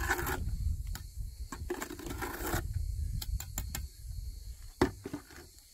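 Cement mortar being scraped out of a metal bucket with a trowel, scraping twice, then a run of sharp metallic clicks and knocks, the loudest near the end, over a steady low rumble.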